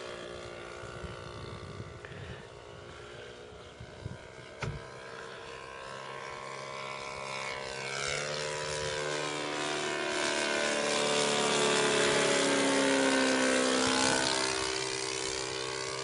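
Saito 180 four-stroke glow engine of a 1/5 scale Pica Waco biplane running in flight, swelling louder over the second half as the plane comes closer, then dropping in pitch as it passes by.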